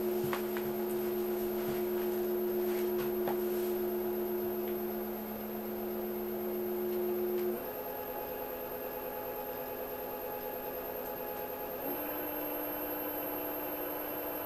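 Brushless rear hub motor of an I-MAX Pro S electric scooter running at no load with the wheel spinning in the air, giving a steady electric whine. The whine shifts to a different pitch about halfway through and again about three quarters of the way through.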